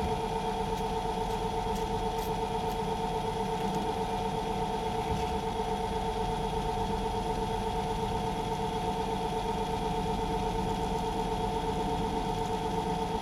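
Myford lathe running steadily with an even hum while an eighth-inch cutter slowly cuts a keyway in a steel drive shaft; the cutting itself is barely audible over the machine.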